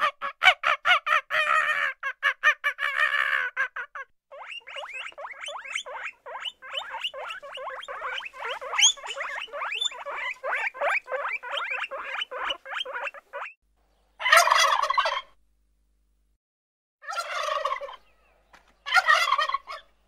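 Farm fowl calling: a long run of fast, rattling calls, then three short rattling bursts near the end.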